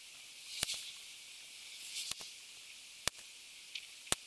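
Remington Airacobra .177 PCP air rifle fired shot after shot through its magazine: four sharp cracks about a second apart, some with a short hiss around them.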